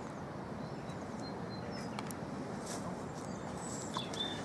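Steady outdoor rushing noise with a few short, high bird chirps, and a couple of faint clicks about halfway through.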